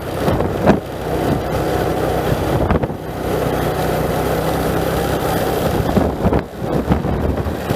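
Motor vehicle engine running steadily on the move, with wind buffeting the microphone and a few sudden gusts or bumps.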